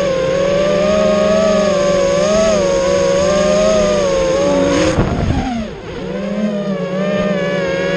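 Racing drone's brushless motors and propellers whining, the pitch rising and falling with the throttle. About five seconds in there is a brief rough burst, the whine drops away as the throttle is cut, and then it climbs back.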